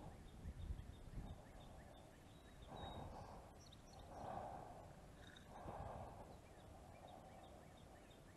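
Soft breaths through the nose right at the microphone, about one every second and a half, with a few faint knocks near the start.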